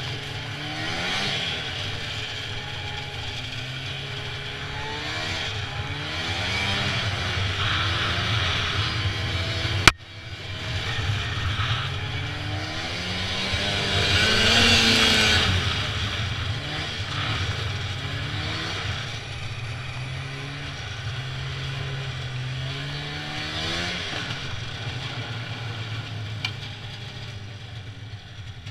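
Snowmobile engine running and revving up and down again and again as the sled moves across snow and slush. There is one sharp click about ten seconds in and a louder hissing rush around the middle. The engine eases off near the end.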